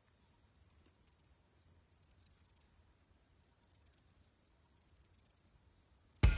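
Insect calling with a high, thin trill four times, about every second and a half, each call swelling and ending in quick pulses. Music with drum beats starts abruptly at the very end.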